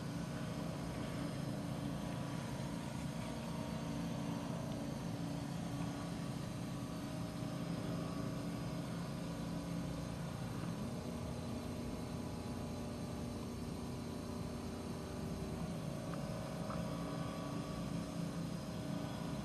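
Steady low hum and rumble of vehicle engines in traffic, with a slight shift in pitch about eleven seconds in.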